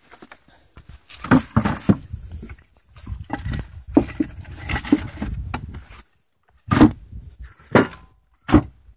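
Split birch firewood knocking and clunking as pieces are handled and set into a mesh bag inside a plastic bucket: a busy run of knocks, then three separate clunks near the end.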